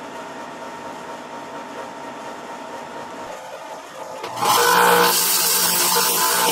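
A steady low hum, then about four and a half seconds in a bench belt grinder starts up loud and steady, grinding the forged mild-steel railroad spike.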